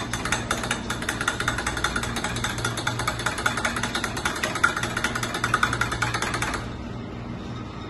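A metal spoon stirring sugar into hot black tea in a stainless steel jug, clinking rapidly against the sides. The clinking stops about six and a half seconds in, and a steady low hum runs underneath.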